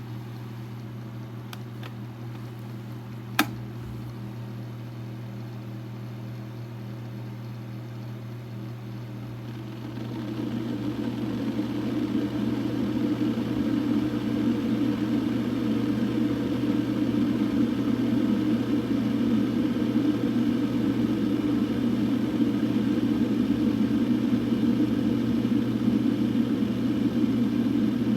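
Hamilton Beach 40880C stainless-steel electric kettle heating water: a single click about three seconds in, then from about ten seconds a rushing noise that builds and holds steady as the water heats, over a steady low hum.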